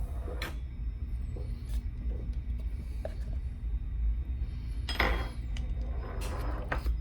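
Steel lock picks working inside a Mul-T-Lock Junior dimple lock, giving a few light metallic clicks scattered over a steady low rumble.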